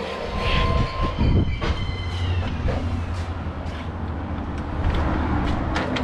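Steel hydraulic floor jack being let down and rolled out from under a car across concrete: metallic rattling and rolling with a few short squeaks in the first couple of seconds.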